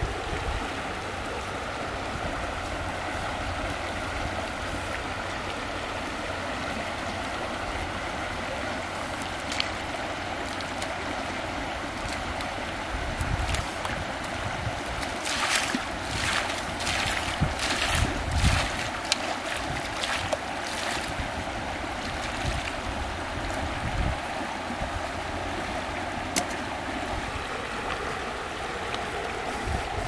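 Steady rush of a shallow river running over rocks, with wind rumble on the microphone. About halfway through comes a run of splashes as rice bait is flung from a metal plate into the water.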